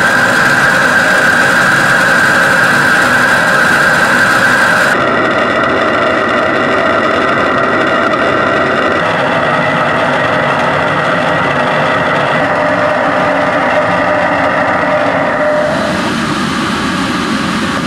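Shaker table vibrating a bolted CubeSat deployer during a vibration test: a loud, dense mechanical buzz with steady tones through it. The sound changes abruptly about five seconds in and again near the end.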